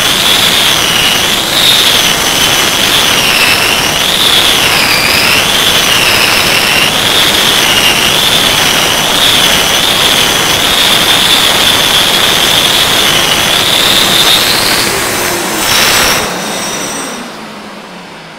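Hand-held concrete milling machine with a dust vacuum attached, grinding carpet adhesive and fibres off a cement screed floor. It makes a loud grinding noise over a high motor whine that wavers as the load changes, while it rests on the floor without being pressed down. About sixteen seconds in it is switched off and winds down, its pitch falling.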